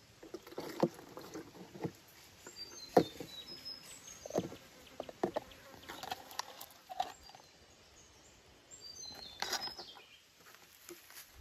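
Rubber tapping: a tapping knife shaving a thin strip of bark along the slanting cut on a rubber tree, heard as irregular short scrapes and knocks.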